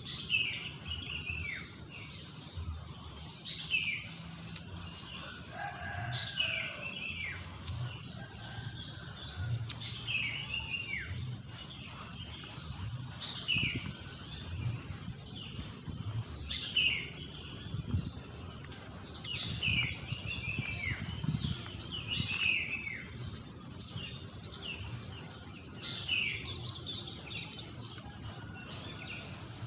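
Wild birds calling: a run of short notes that fall in pitch, repeating every second or two, mixed with higher quick chirps from other birds.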